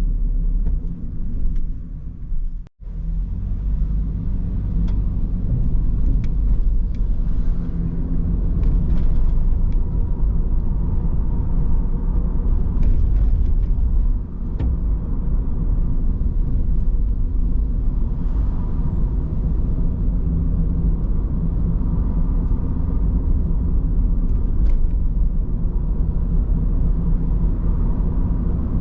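Car driving on the road: a steady low rumble of engine and tyre noise. It cuts out for an instant about three seconds in.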